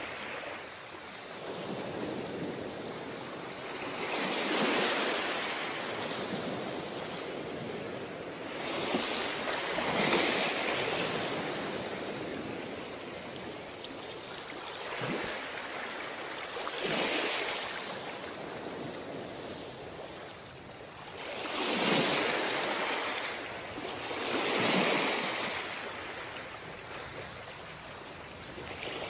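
Ocean waves breaking on a beach, each swell rising and washing out over a steady surf hiss; about six breakers, the strongest around ten seconds in and near the twenty-two second mark.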